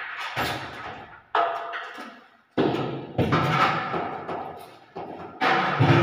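Irregular loud knocks and bangs on a newly installed door and its frame, about five or six, each ringing on and dying away over about a second in an echoing room.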